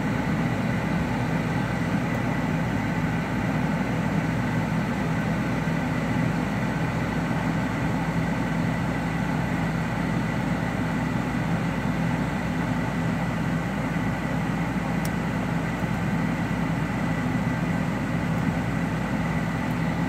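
Steady low hum of a 1985 Jaguar XJS's engine and climate-control system running, heard from inside the cabin, with a faint steady whine above it.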